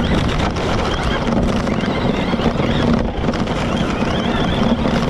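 Yokomo YZ-2T 1/10 electric RC truck driving hard on a dirt track, heard from a camera mounted on the car: a high whine from its motor and drivetrain rising and falling with the throttle, over a loud rough rush of wind on the microphone and the chassis running over dirt.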